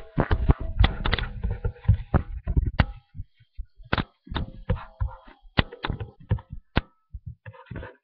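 Irregular clicks and knocks close to the microphone, thick with dull thumps over the first few seconds, then thinning to single sharp clicks.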